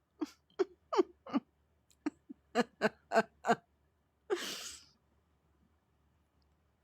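Oriental Shorthair cat making a quick run of about ten short chirping meows, some falling in pitch, followed by a brief breathy puff about four and a half seconds in.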